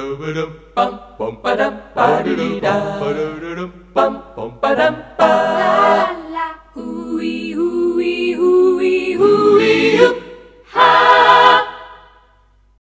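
An a cappella vocal jingle: voices singing in harmony, with short clipped phrases at first, then long held chords, and one last sung phrase about eleven seconds in that fades out.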